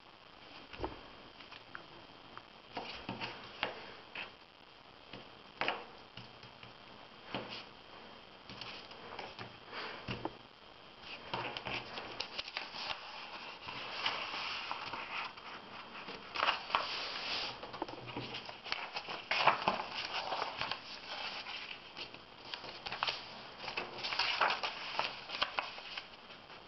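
A sheet of white paper being handled and folded by hand on a tabletop: rustling, sliding and creases pressed down, in irregular short bursts that come thicker from about halfway through.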